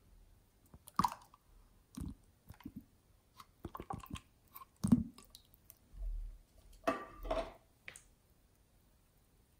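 Green slime being squeezed out of a small plastic bottle into a tub of other slimes: irregular wet squelches and clicks. The loudest comes about five seconds in, with a longer pair of squishes around seven seconds.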